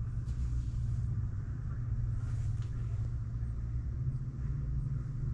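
A steady low mechanical hum, with a faint click right at the start.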